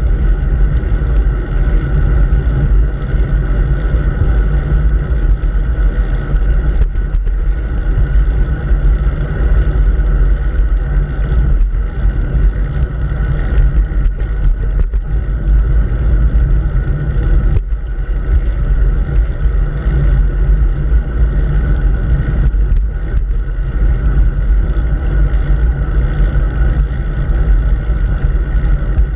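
Wind and road noise on a bicycle's handlebar-mounted camera while riding: a loud, steady low rumble.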